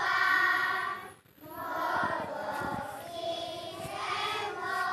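A choir of young schoolchildren singing a prayer song together, with a short pause between phrases about a second in.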